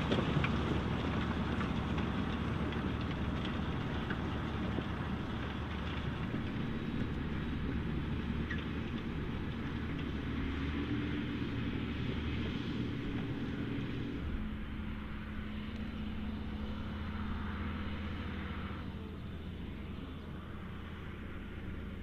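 John Deere tractor diesel engines running steadily under load while pulling ploughs through the soil. First a 6215R working close by. About two-thirds of the way through, the sound changes abruptly to the steady note of a 9560R articulated tractor, a little quieter.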